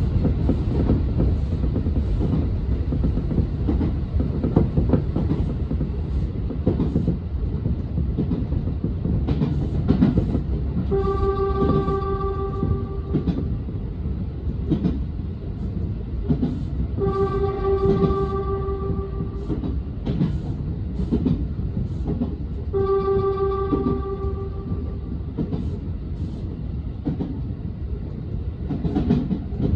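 Train running steadily over the rails with faint clicks from the track, and the train's warning horn sounding three times, each a single held note of about two seconds, spaced about six seconds apart.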